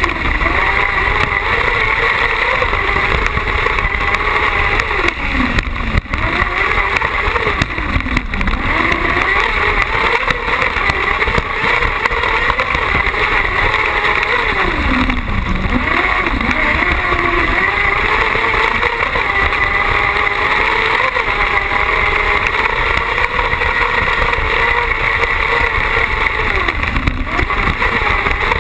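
Carcross buggy's motorcycle-type engine at race pace heard onboard, loud and high-revving, its pitch dropping and climbing again several times as the driver lifts and shifts through the corners of a dirt track.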